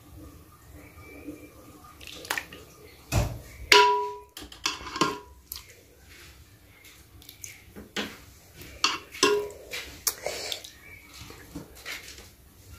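A metal ladle clinking and scraping as sauce is dished onto a plate, with a string of sharp clinks, a few of which ring briefly; the loudest comes about four seconds in.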